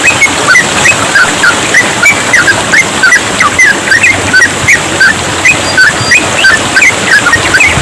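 Yellow-vented bulbul (trucukan) singing in rapid 'ropel' style: an unbroken stream of short, quick sliding chirps, about four or five a second, over trickling water.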